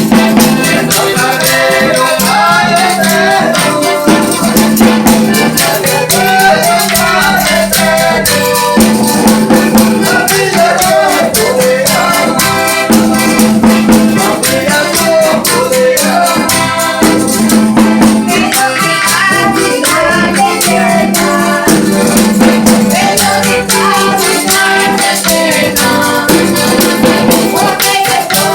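Folia do Divino music: voices singing over steady shaken percussion, with a low held note returning in phrases about every four seconds.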